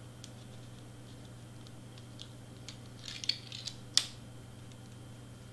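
Stiff cardstock eye pieces being handled and pressed into place: light paper rustles and clicks, with a short burst of crinkling about three seconds in and one sharp tap at about four seconds.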